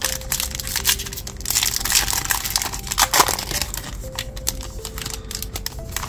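A trading card pack's wrapper being torn open and crinkled by hand. The crinkling is dense and loudest in the first three seconds or so, then thins to a few crackles. Quiet background music plays underneath.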